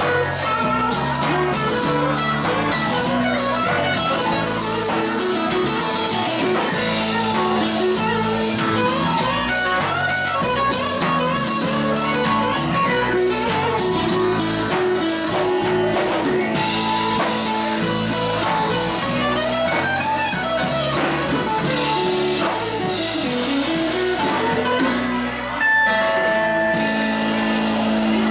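Live blues-rock band playing: electric guitars, bass guitar and drum kit. Near the end a loud held chord rings out.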